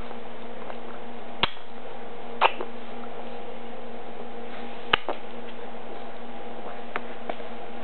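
A steady electrical hum with hiss, broken by a few short, sharp clicks: one about a second and a half in, a softer smack-like one a second later, another around five seconds, and two faint ticks near the end.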